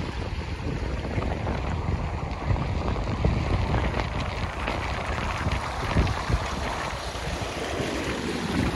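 Wind buffeting the microphone in uneven gusts over the continuous rush of floodwater.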